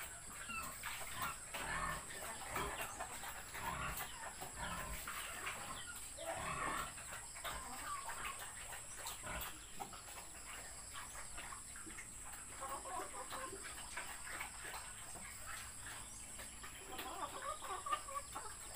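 Chickens clucking in short, scattered calls, over a steady faint high-pitched hiss.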